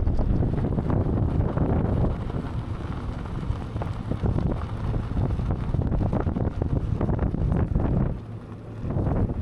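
Wind buffeting the microphone: a rough, uneven rushing rumble that rises and falls, easing off briefly about eight seconds in.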